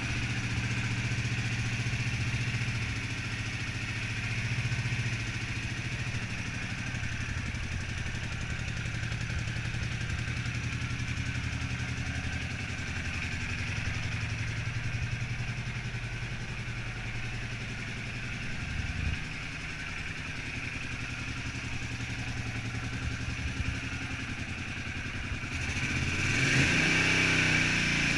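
Honda CX500's water-cooled V-twin idling steadily, then revved up near the end.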